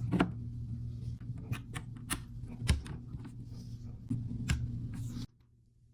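Irregular clicks and light knocks of things being handled on a desk, over a steady low hum, cutting off suddenly about five seconds in.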